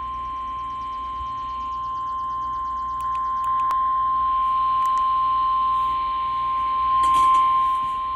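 NOAA Weather Radio warning alarm tone: one steady 1050 Hz tone held without a break. It is the signal that a warning message, here a severe thunderstorm warning, is about to be read.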